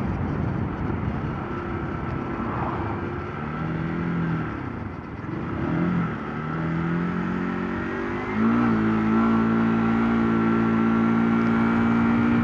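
2007 Honda CBR125's single-cylinder four-stroke engine under way, its note dipping and recovering a few times as the throttle is eased and reopened. About two thirds in it gets louder and settles on a steady, higher note as the bike pulls.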